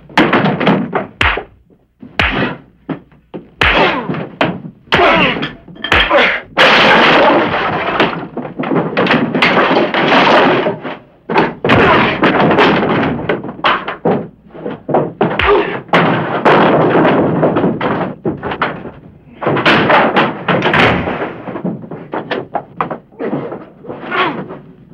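Fistfight sound effects: a rapid string of punch thuds and knocks, with longer stretches of crashing as wooden chairs and tables are knocked over and broken.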